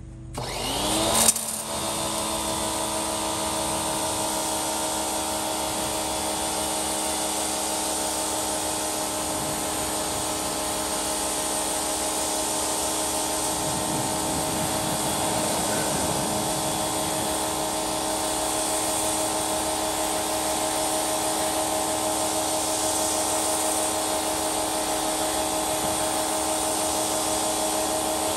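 1900 PSI electric pressure washer starting up about a second in, its motor and pump whining up in pitch, then running steadily under load with the hiss of the water jet spraying onto a truck tire.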